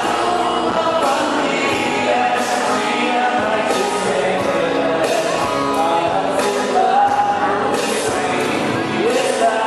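Music with singing: a song with a voice over instruments.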